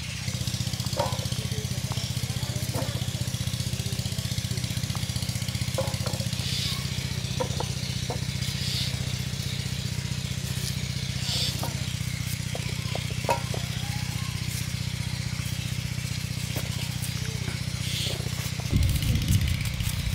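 A steady low engine hum, louder near the end, with scattered light clicks and knocks of potatoes being cut on curved boti blades.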